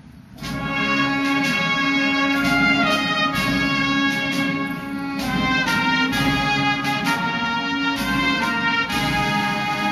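Military band strikes up about half a second in: a brass melody over regular drumbeats, played at a steady level.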